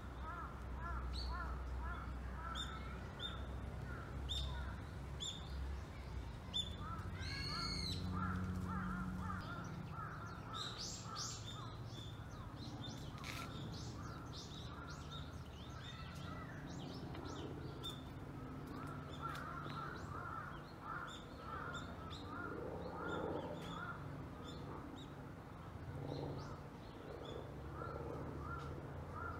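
Wild birds calling: many short calls repeated throughout, with one louder call sweeping up and down in pitch about eight seconds in, over a low rumble that fades after about nine seconds.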